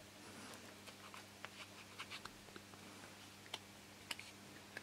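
Faint scattered clicks and taps as a thin light-plywood wing-tip piece and a balsa block are handled, over a steady low hum.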